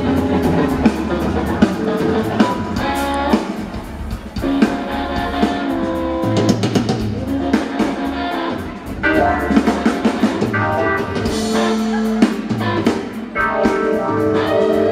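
Live rock band playing: electric guitars, bass guitar and drum kit, heard from the audience floor.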